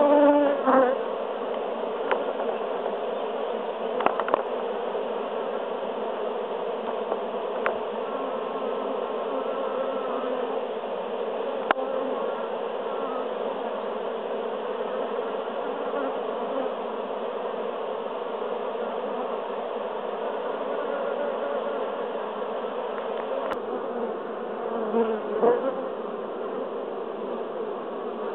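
Dense buzzing of a great mass of honeybees in flight around a hive entrance, a steady hum with several pitches drifting within it. A brief louder swell comes near the end.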